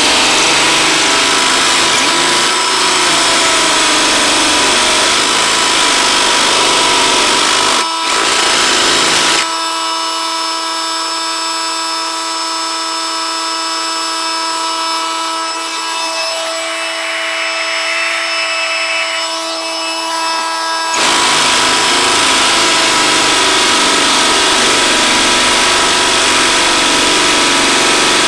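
Ryobi One+ brushless hammer drill with a 3/4-inch masonry bit hammer drilling into a solid stone block. About nine seconds in the bit comes out of the hole, and the drill spins freely for about eleven seconds, quieter, with a steady motor whine. It then bites into the stone again with the loud hammering.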